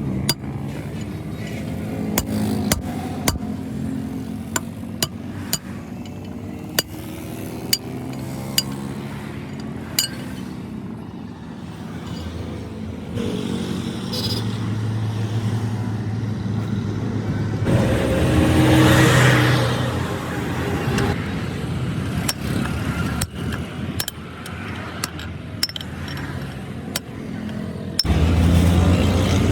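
Irregular sharp metal knocks and clinks over a steadily running vehicle engine, with a louder swell of engine noise that rises and falls about two-thirds of the way in.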